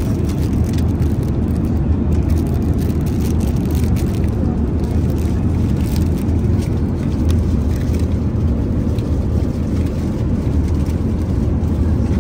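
Boeing 787-8 passenger cabin in flight: a steady, even low rumble of engine and airflow noise, with faint crinkles of plastic food wrapping being handled.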